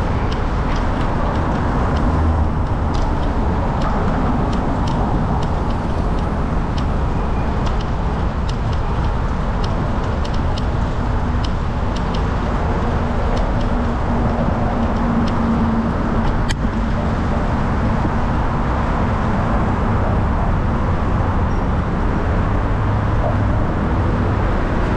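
Steady wind rush on the microphone of a bicycle-mounted action camera while riding, mixed with traffic noise from the roadway alongside. Scattered light ticks sound through it.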